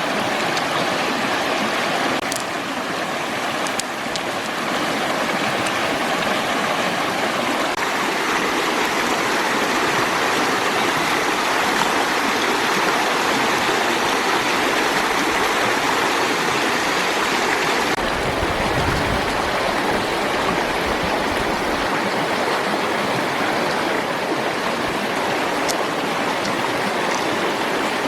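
Steady rushing of running water. A few faint clicks sound over it, and a low rumble comes in for a few seconds past the middle.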